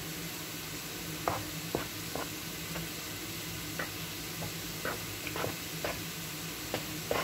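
A metal spoon stirring thick liver batter, with flour and eggs being worked in, in a bowl. The spoon makes short, irregular clicks against the bowl, roughly one every half second, over a steady background hiss.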